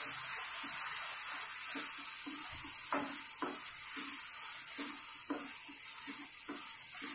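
Spatula stirring and scraping thick masala gravy in a kadhai, in repeated short strokes about two a second, with a steady sizzle of the oil in the gravy underneath as the spice powders are mixed in.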